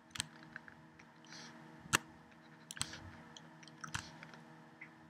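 Faint taps and clicks of a stylus pen on a Wacom Bamboo pen tablet while straight lines are drawn, about five sharp ticks spread unevenly, with a soft scratch of the pen tip once in between.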